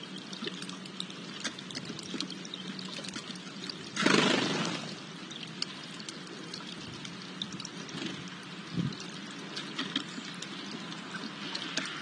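Small fountain in a stone birdbath trickling and splashing steadily, with many light clicks over it. A brief, loud rush of noise comes about four seconds in.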